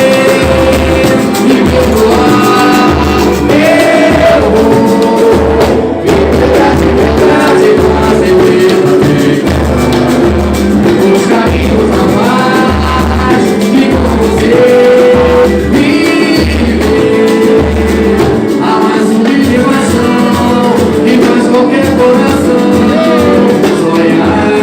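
Music with singing over a steady, heavy low beat. The beat breaks into a lighter, busier pattern about three-quarters of the way through.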